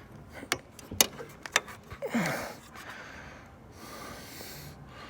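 Three sharp clicks in the first two seconds, like handling knocks, then a short falling breathy vocal sound, like a grunt or exhale, just after two seconds, over a faint steady hiss.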